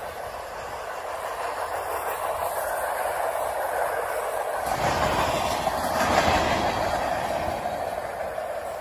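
Freight train cars rolling past on the rails: a steady rumble and rattle of steel wheels on track, growing louder and deeper about halfway through, then easing off.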